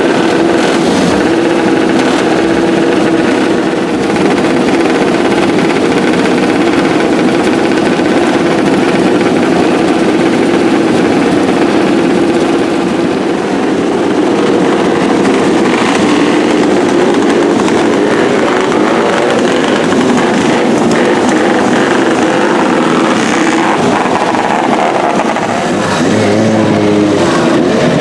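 Vintage motorcycle engines running, with the revs rising and falling near the end.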